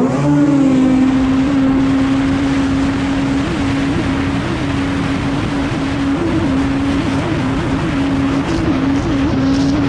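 Race personal watercraft's Kawasaki SX-R 160 four-stroke, four-cylinder engine revving sharply up from idle to full throttle at the race start, then held at a steady high pitch with brief upward blips, over a constant rush of wind and spray.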